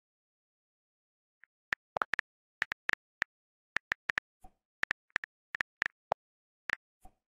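Phone on-screen keyboard clicks as a message is typed: a couple of dozen short, sharp ticks in irregular quick runs, a few of them lower in pitch than the rest.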